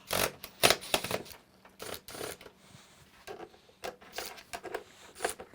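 A screwdriver unscrewing the screws along the top of a dishwasher's fascia: a few sharp clicks about the first second, then scattered scrapes and rattles of metal on the screws and panel.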